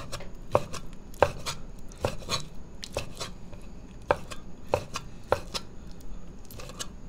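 Meat cleaver chopping raw chicken thigh into small chunks on a wooden cutting board: sharp knocks of the blade hitting the wood, about two a second and unevenly spaced.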